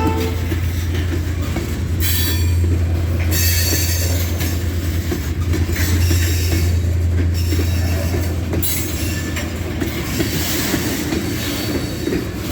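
Freight cars of a shortline train rolling past with a steady low rumble of wheels on rail. Stretches of high wheel squeal and screech come and go every second or two. A locomotive horn chord cuts off just as it begins.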